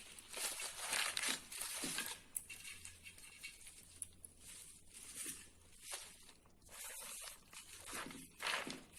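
Bundles of fresh herbs being handled and pushed into a cooking pot: irregular rustling and crackling of leaves and stems, in short bursts.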